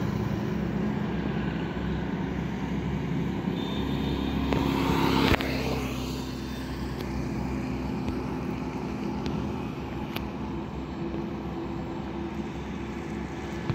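Highway traffic: a steady low hum of engines from approaching trucks and motorcycles. The level builds for about five seconds, then drops abruptly.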